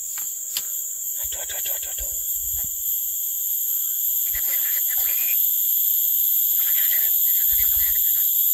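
Forest insects buzzing in a steady, high-pitched chorus at several pitches at once. A few faint low bumps come and go underneath.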